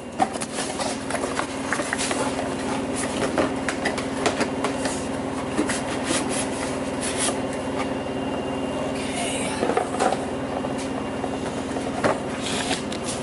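Cardboard boxes being handled and opened on a workbench: repeated rubbing, scraping and light knocks of cardboard, over a steady low hum.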